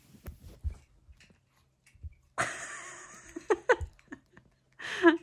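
A short breathy giggle, after a few soft low thumps.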